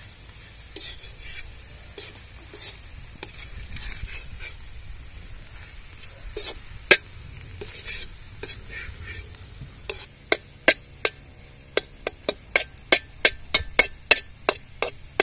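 Metal spatula stirring and scraping egg yolk masala around an iron kadai, with a faint sizzle from the pan. In the last third the spatula strikes the pan in a run of sharp taps, about three a second.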